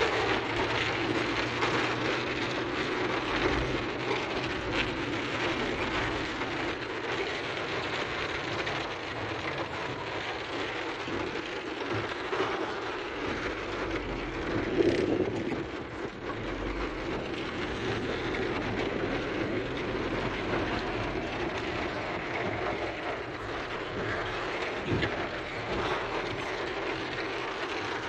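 Steady noise heard from inside a moving car in a heavy rainstorm: rain on the car and tyres on the wet, flooded road, with a brief louder swell about halfway through.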